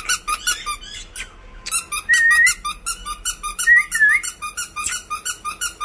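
Rapid, even run of high squeaks, several a second, as from a squeaky toy being worked to catch a puppy's attention. Two short wavering high-pitched tones come through about two and four seconds in.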